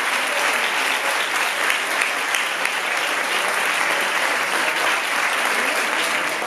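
Audience applauding steadily with dense clapping, fading out quickly at the very end.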